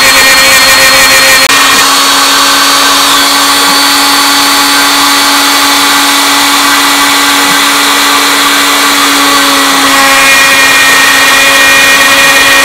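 CNC router spindle running with a steady whine while its quarter-inch flat bit cuts slots in a pine board. Its tone shifts slightly about a second and a half in and again near ten seconds.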